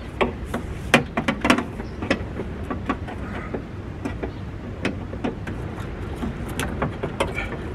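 Irregular sharp clicks and knocks of plastic and metal parts as a car door handle assembly is worked and forced into place in the door, over a steady low rumble.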